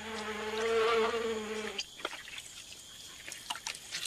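A flying insect buzzing on one steady pitch, cutting off abruptly just under two seconds in. Faint scattered clicks follow.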